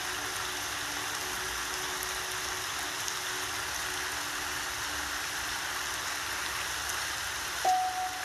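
Background track of steady rain with soft piano: faint held notes fade in the first few seconds, and a clearer piano note is struck near the end.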